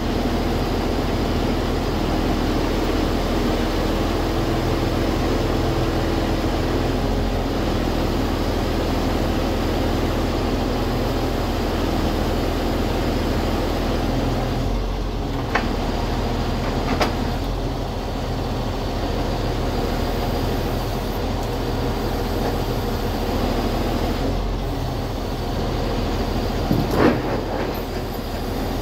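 Timber truck's diesel engine running steadily at raised revs, driving the hydraulic pumps. Three short sharp knocks come through it, twice about halfway through and once near the end.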